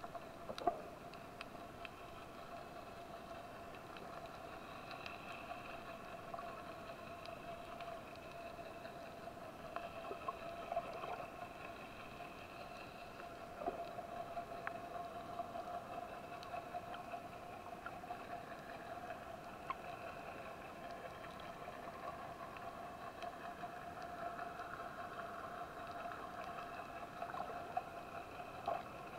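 A distant boat engine heard underwater: a steady drone with several held pitches that waver slightly, with scattered faint clicks.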